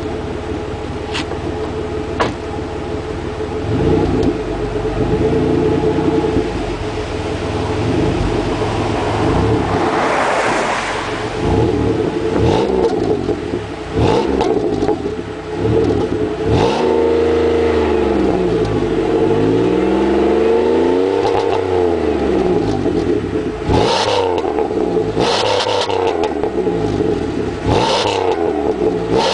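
2000 Chevrolet Impala LS's 3.8-litre V6 heard close at the tailpipe through a Flowmaster muffler with the resonator removed. It idles at first, then is revved repeatedly, the pitch climbing and falling back, with a few quick blips near the end.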